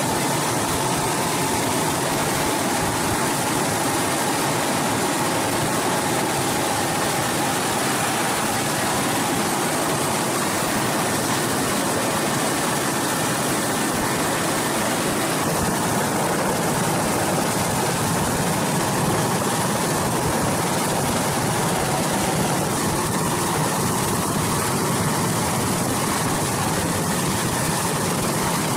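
Steady, unbroken noise of a Super Puma helicopter's turbines and rotor in a hover, heard from inside the cabin at the open hoist door.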